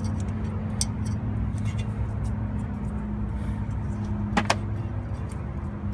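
Light metallic clicks and taps from handling the ABS sensor and tools at the wheel hub, with one sharper double click about four and a half seconds in, over a steady low hum.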